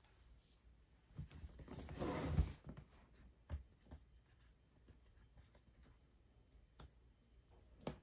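Packaging being handled: a rustling, sliding stretch of about a second and a half, then a few light taps and clicks.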